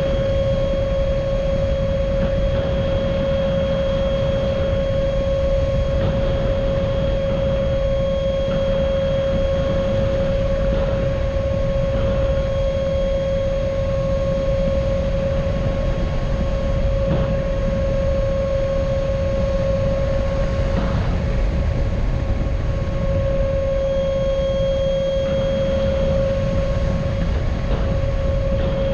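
A 64 mm electric ducted fan on a 4S battery whines at a steady high pitch as the RC plane flies, over a low noisy rush.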